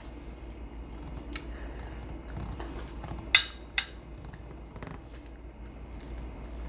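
Cutlery clinking against a dish: two sharp, ringing clinks about half a second apart near the middle, over a low steady hum.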